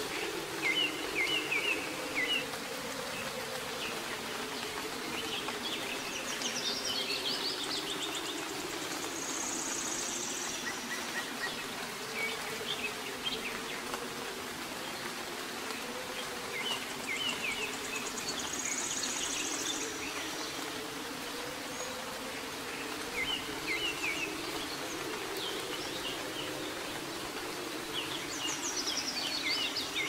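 Steady soft rain with birds chirping in short bursts every few seconds, including a couple of brief high trills. A low wavering drone runs underneath.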